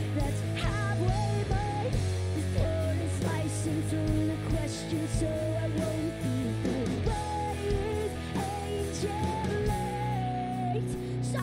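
Rock band playing live, with electric guitar, bass and drums, and a woman's voice singing long, wavering notes over them.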